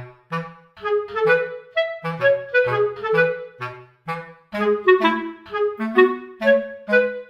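Background music: a light, bouncy tune of short melody notes over a plodding bass line.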